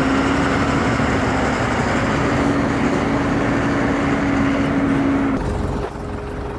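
Heavy crane's diesel engine running steadily under load, with a held hum. About five seconds in the hum drops away and the noise gets quieter, leaving a fainter, higher hum.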